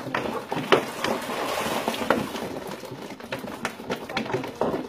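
A hooked piranha splashing at the water's surface as it is hauled out on a hand line, with scattered sharp knocks.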